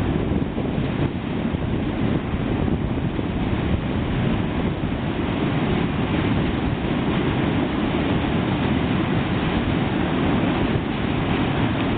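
Freight train crossing a steel truss railway bridge: a steady low rumble.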